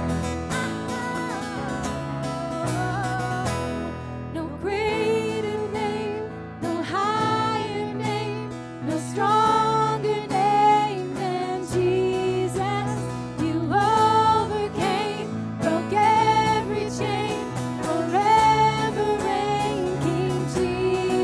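Live worship music: acoustic guitar and electric keyboard playing chords, with a sung melody coming in about four seconds in and carrying on.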